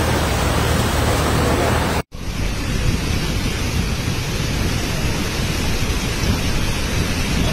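Loud, steady rushing noise of muddy floodwater in a torrent. About two seconds in it cuts out abruptly, then a similar steady roar of a flood torrent resumes.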